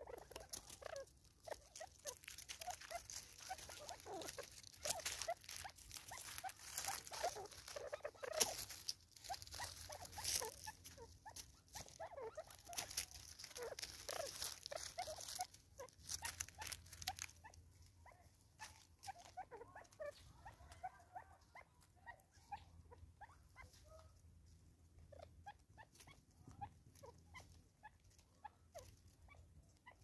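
Spurfowl pecking seed off a wooden tree stump: rapid, irregular tapping and scratching, busiest in the first half.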